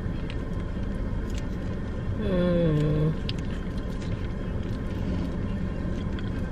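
Steady low rumble of a car running, heard from inside the cabin. About two seconds in comes a short hummed "mm" that slides down in pitch, and there are a few faint crinkles as a ketchup packet is squeezed.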